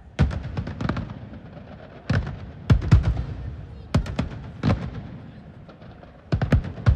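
Aerial fireworks shells bursting in quick volleys of sharp bangs, with rumbling echoes trailing each volley. There are four clusters: just after the start, around two seconds in, around four seconds in, and near the end.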